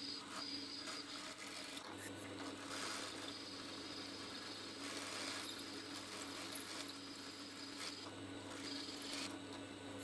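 Pillar drill running steadily as its bit cuts into a thick aluminium block, with a constant motor hum and the scraping of the bit in the metal, loudest about a second in.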